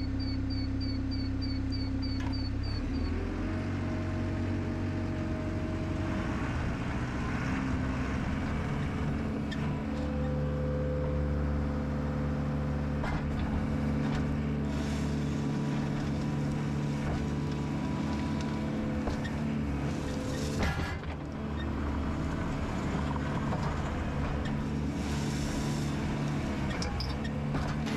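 Gehl skid steer's diesel engine running as the machine works a pile of rock dust, its pitch rising about three seconds in, with a single clunk a little after twenty seconds.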